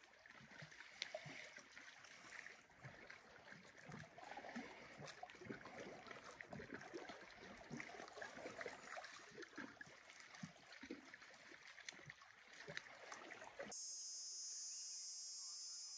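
Small lake waves lapping and splashing softly and irregularly at the shoreline. Near the end it cuts to a steady high insect trill.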